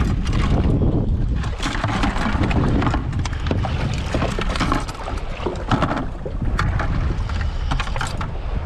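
Wind buffeting the microphone as a steady low rumble, with choppy sea water slapping and splashing against the jet ski's hull in many short, sharp splashes.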